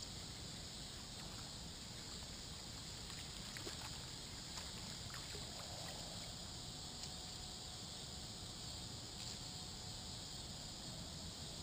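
Faint steady outdoor ambience on a small boat on open water: a low rumble and hiss with a high steady buzz, and a few faint scattered ticks.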